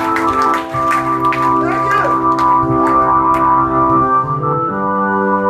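Live band playing: long sustained organ chords from the stage keyboard, with drum and cymbal hits and electric guitar over them. The chord changes about four and a half seconds in.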